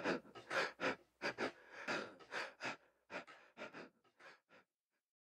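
A person panting, quick breaths in an uneven run of about three a second, growing fainter and stopping about four and a half seconds in.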